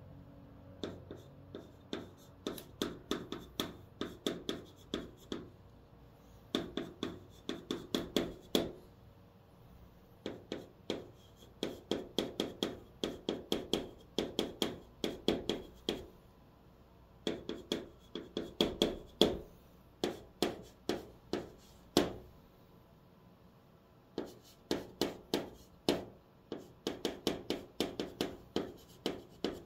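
White chalk in a holder writing on a green chalkboard: quick runs of sharp taps and short scrapes, one per stroke of each character. The runs come in bursts with brief pauses between characters.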